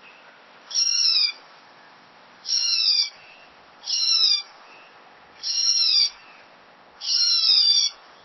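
An owl calling: five short, high calls, each falling in pitch, about one every one and a half seconds.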